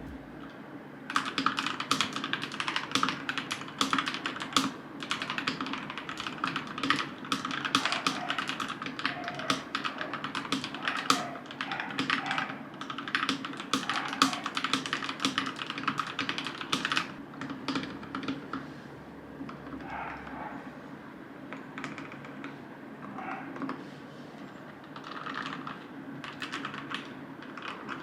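Mechanical keyboard with Akko Matcha Green switches being typed on: a fast, steady run of key clacks that starts about a second in, then slower, quieter bursts of typing in the second half.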